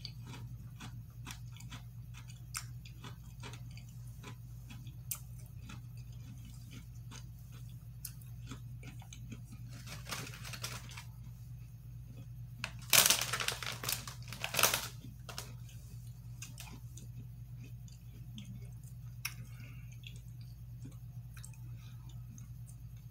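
Close-up chewing of Oreo sandwich cookies, with small mouth clicks throughout and a few louder crunches about ten seconds in and again around thirteen to fifteen seconds in, over a steady low hum.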